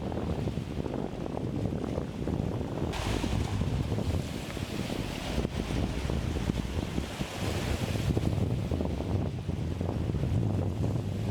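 Strong wind buffeting the microphone over choppy sea, with the wash of waves. From about three seconds in, a brighter hiss of breaking water and spray swells for several seconds, then eases.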